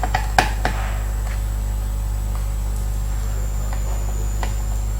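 Steady low electrical hum, with a few small clicks in the first second or so and fainter ticks later, from screws and a screwdriver being handled on a laptop's chassis.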